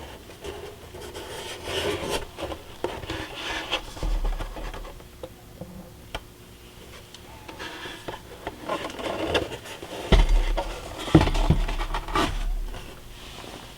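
Irregular rubbing and scraping sounds from things being handled on a work surface, in three spells, with a few low bumps and clicks; the loudest bumps come about ten to twelve seconds in.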